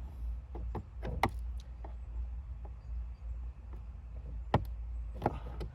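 Plastic dashboard trim being pried and worked loose from its clips: a scatter of sharp clicks and knocks, the loudest about four and a half seconds in, over a steady low hum.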